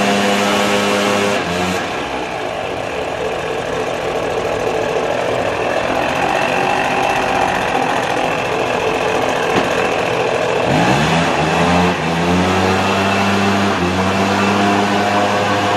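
Petrol backpack leaf blower running: its engine goes up to a steady rush of blowing air about a second and a half in, then drops back down to a lower, even running note near eleven seconds in.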